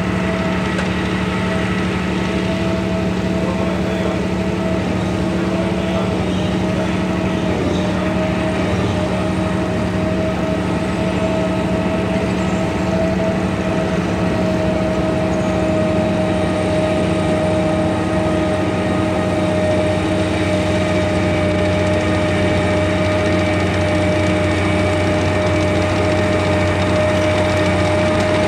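Chieftain tank's Leyland L60 two-stroke engine running steadily as the tank drives slowly on a dirt track, with a steady high whine over the engine note. It grows a little louder as the tank nears.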